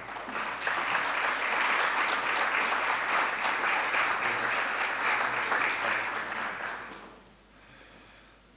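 Audience applauding, fading away about seven seconds in.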